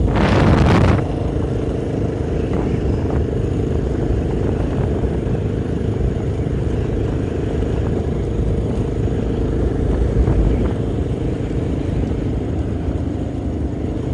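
Honda NX Falcon's single-cylinder engine running as the motorcycle rides along at a steady pace, mixed with wind rushing on the microphone. In the first second a loud rush of noise covers everything, and there is a low swell about ten seconds in.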